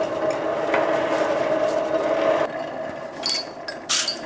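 Coal forge blower running with a steady whine that stops about two and a half seconds in, followed near the end by scratchy wire-brush strokes on the hot iron link.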